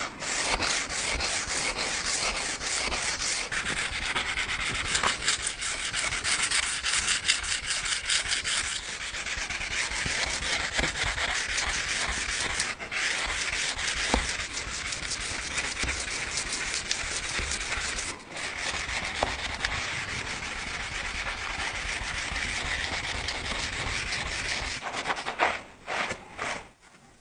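Steady abrasive sanding, a continuous rasping rub against the knife being finished, with a couple of short breaks, stopping near the end.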